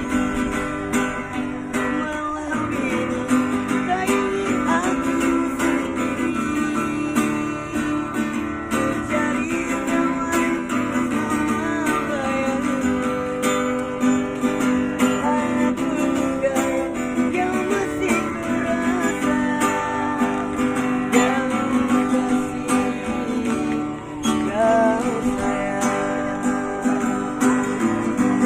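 Street buskers' acoustic guitar strummed steadily through a song, with a bending melody line over it.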